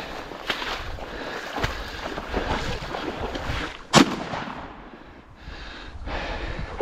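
A single shotgun shot about four seconds in, sharp and much louder than anything else. Around it, steady rustling and footsteps of someone pushing through marsh brush and grass.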